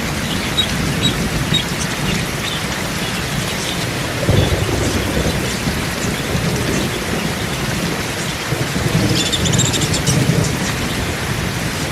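Steady rain hiss with low rumbling surges, the strongest about four seconds in. Short high chirps from a budgerigar come now and then, most densely near the end.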